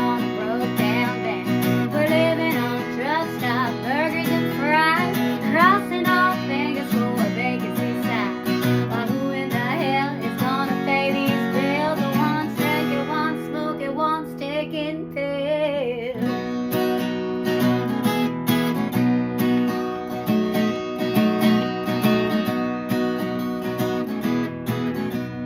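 Acoustic guitar strummed through an instrumental break in a country song. For about the first half a bending, gliding lead melody plays over the chords, then falls away, and plain strumming carries on.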